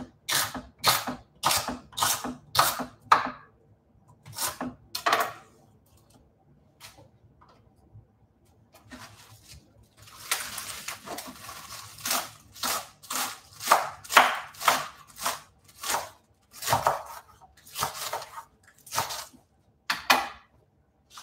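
A kitchen knife chopping rainbow chard on a wooden cutting board, in steady strokes about three a second. The chopping pauses partway, and near the middle there is a rustle of leaves as a handful of greens goes into the pan. Then the steady chopping starts again.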